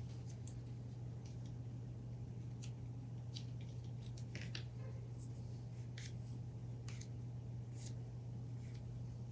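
Scattered faint plastic clicks and ticks from handling a 3D printing pen while PLA filament is fed into it, over a steady low hum.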